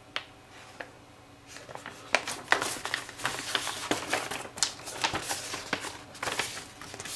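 A large printed paper poster being handled and folded back up: paper rustling and crinkling, starting about a second and a half in after a quiet moment with a couple of small clicks.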